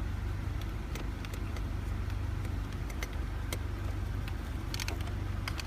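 Nissan Altima's engine idling, a steady low hum heard inside the cabin, with a few light clicks scattered through it and a short cluster near the end.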